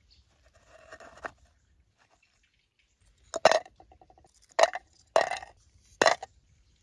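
Four sharp knocks of small hard objects, with a faint scrape about a second in and a brief rattle after the first knock.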